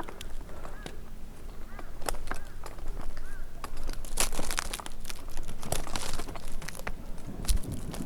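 Rustling and crackling with many irregular sharp clicks, busiest in the middle and near the end, and no chainsaw running; a few short high chirps come in the first few seconds.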